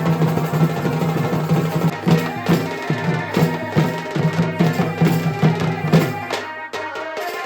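Traditional folk music with loud drumming and a melody line over it. The drumming stops about six seconds in.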